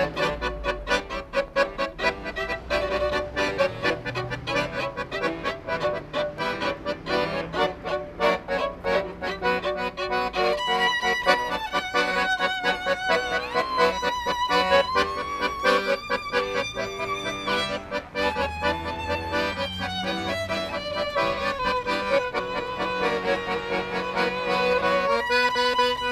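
Violin and piano accordion playing a duet. The first ten seconds or so are choppy and rhythmic; after that long held violin melody notes with vibrato sing over the accordion's accompaniment.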